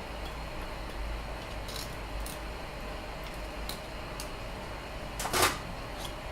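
Plastic support material being pried and snapped off a freshly printed 3D part: a few small clicks, then a louder crack about five seconds in, over a steady low hum.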